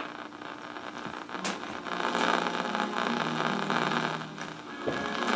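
Radio-frequency interference through a Yaesu FRG-7 shortwave receiver's speaker on the AM broadcast band: a steady hiss with a crackling, frying texture and a few sharp clicks. The noise grows louder about five seconds in.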